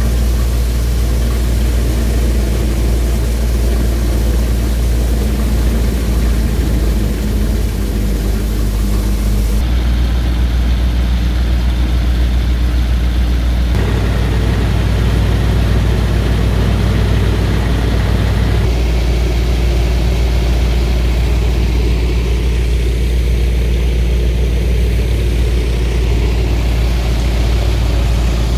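A John Deere tractor engine running steadily under load while it drives a Khokhar Harambha multicrop thresher, with the thresher's machinery running alongside. The sound shifts abruptly three times, at about 10, 14 and 19 seconds in.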